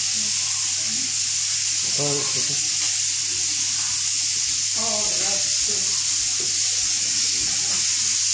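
Steady high-pitched hiss with no change in level, with faint voices briefly about two seconds and five seconds in.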